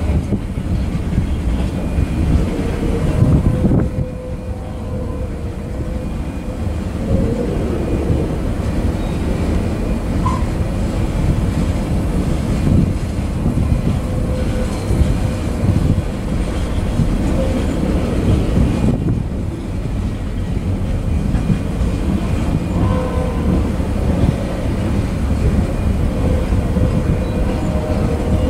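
Freight train's tank cars and covered hopper cars rolling past, steel wheels clattering over the rails in a steady rumble.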